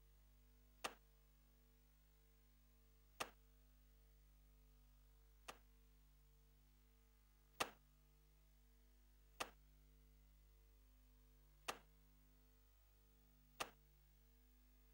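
Seven single sharp clicks, one about every two seconds, the third a little softer, each with a brief tail, over a faint steady hum in near silence.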